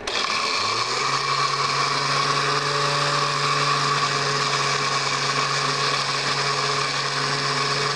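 Osterizer 10-speed countertop blender motor switched on at the Blend setting, spinning up over the first second and then running steadily. The jar is packed with whole Doritos tortilla chips that stay whole above the blades without being chopped.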